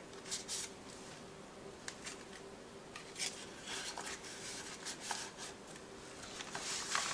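Paper and cardstock rustling and tapping as the pages, tags and pockets of a handmade paper mini album are handled and turned, in several short scrapes, over a faint steady hum.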